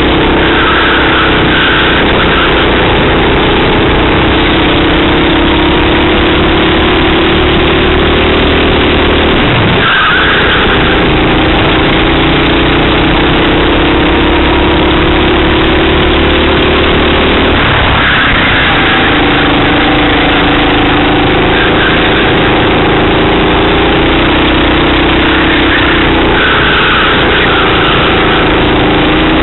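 Racing kart engine heard loud and close from an onboard camera, its note climbing slowly as the kart accelerates down each straight. It drops sharply about a third of the way in and again just past halfway as the throttle is lifted for corners, then climbs again.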